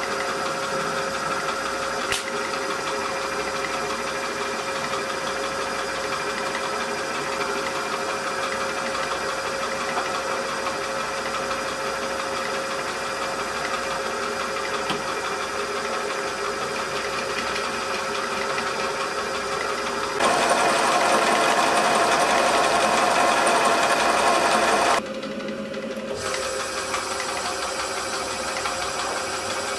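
Myford Super 7 lathe running, its motor and belt drive whirring steadily with a few held tones. The sound steps louder about two-thirds of the way through, then drops back suddenly a few seconds later.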